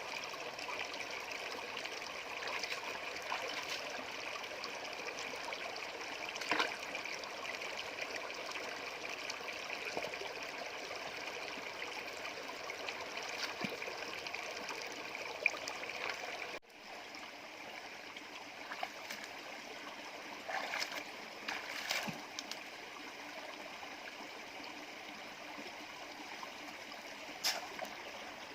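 Stream water flowing steadily, with a few short sharp splashes. About halfway through the rush cuts and comes back quieter.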